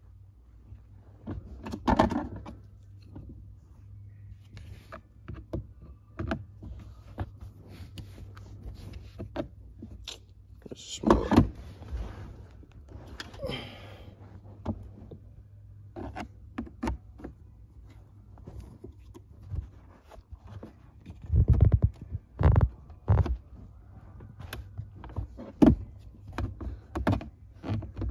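Honda Civic Type R's plastic centre-console trim being pried loose with a pry tool: irregular clicks, scrapes and knocks as its clips are worked free, with several louder thunks spread through, all over a faint steady low hum.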